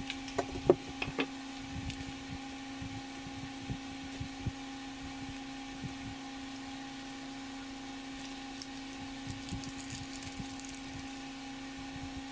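A steady hum with a low and a higher tone runs throughout. Over it are sharp handling clicks in the first second and a spell of faint plastic-bag crinkling later on, as a bag of replacement rubber O-rings is handled.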